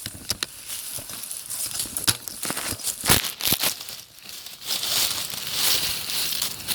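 Crunching and rustling of dry leaves and brush, with irregular sharp clicks and snaps in the first half and a steadier rustling hiss later.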